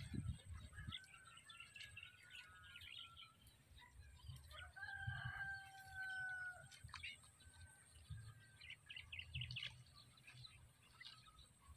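A rooster crowing once, a long held call about five seconds in, with small birds chirping on and off and a faint low rumble underneath.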